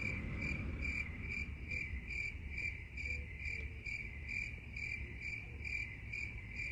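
A cricket chirping in a steady, even rhythm, about two to three high chirps a second, over a low background rumble.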